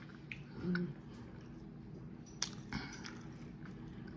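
A person chewing food quietly, with soft mouth sounds, a brief hum near the start and a few small clicks.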